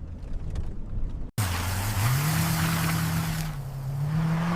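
A car engine: a low rumble, then an abrupt cut about a second and a half in to a louder engine that revs up and holds a steady pitch, with a strong hiss of road and wind noise.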